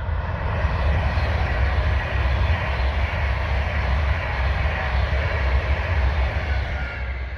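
A train passing at speed on the main line: a loud rushing roar with a deep rumble that builds over the first second and begins to fade near the end.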